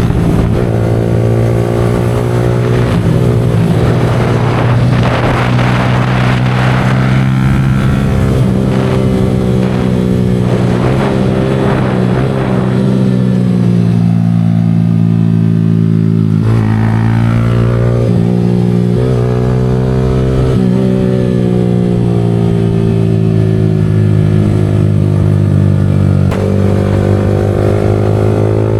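Yamaha R15 V4 motorcycle's single-cylinder engine, running through an aftermarket Leo Vince exhaust, on the move. Its engine note rises and falls several times as the throttle and revs change.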